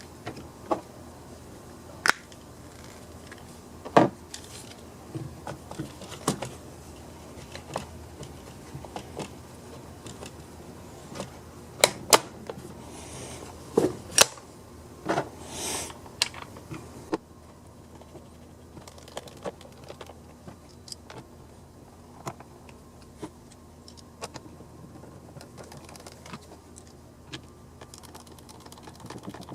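Scattered clicks, taps and knocks of the chainsaw's plastic recoil-starter housing, pulley and spring being handled and refitted, with a couple of brief scraping sounds in the middle; after that only light ticks.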